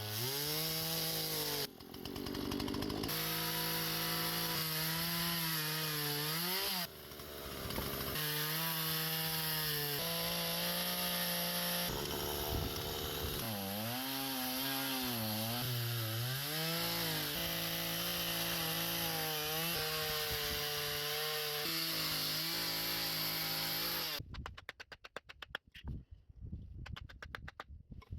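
Power saw cutting wood, its motor pitch dipping under load and recovering again and again, with two brief pauses. About four seconds before the end it stops, and a rapid run of light clicks and taps follows.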